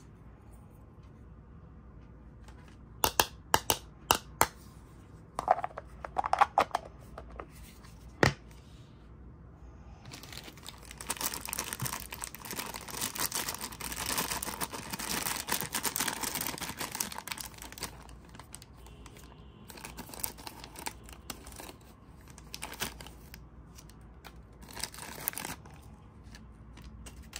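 A few sharp clicks and taps of small hard plastic toy pieces being handled, then a clear plastic bag crinkling and tearing for several seconds as it is opened, with shorter bursts of crinkling near the end.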